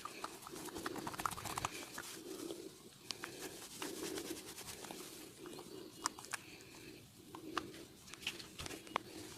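Hands working over a body in a massage: a run of sharp taps and clicks, over a soft low sound that repeats about once a second.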